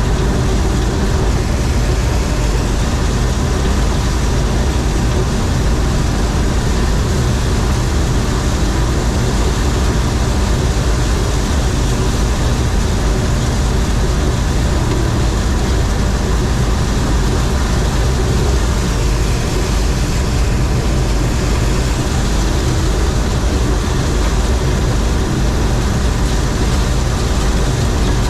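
John Deere 4400 combine running steadily while harvesting corn: a loud, even drone of engine and threshing machinery with no change in pace.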